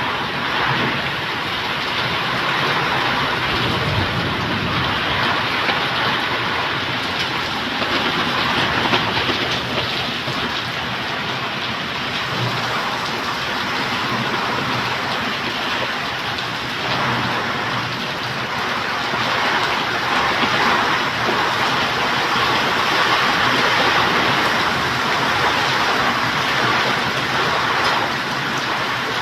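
Heavy rain pouring down steadily, at times swelling a little louder.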